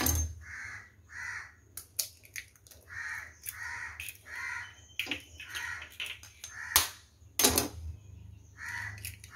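A bird calling over and over in short runs of two or three calls, with a few sharp cracks as eggs are broken open. The loudest crack comes about seven and a half seconds in.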